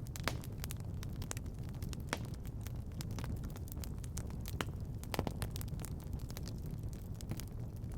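Wood fire burning in a fireplace: a steady low rumble of flames with sharp crackles and pops at irregular intervals.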